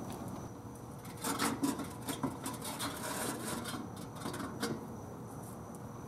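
Rubbing, scraping and light knocks of a tornado siren's housing being handled and lifted off the siren, in a cluster between about one and five seconds in.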